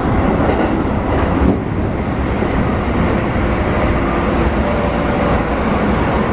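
Keikyu New 1000 series electric train running, a steady rumble of wheels on rail heard from inside the passenger car, with one louder knock about a second and a half in.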